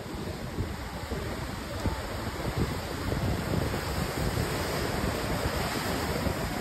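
Sea surf churning and breaking into white foam, a steady rush of water, with wind buffeting the microphone.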